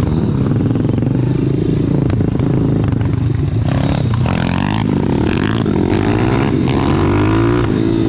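Pit bike's small single-cylinder four-stroke engine running as it is ridden, its pitch rising and falling with the throttle and gear changes. It is louder and sharper for about a second around four seconds in.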